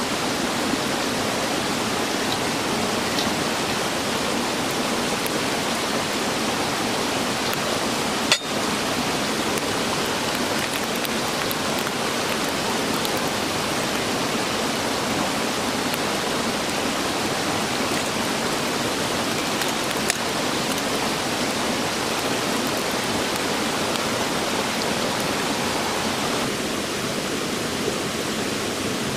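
A steady rushing noise, even and unbroken, with one sharp click about eight seconds in and a fainter tick or two later.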